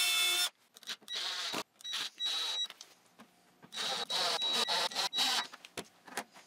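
Cordless drill/driver whining in several short bursts, starting and stopping, as it drills mounting holes and drives screws through a metal continuous hinge into a wooden frame. The last and longest burst runs about a second and a half.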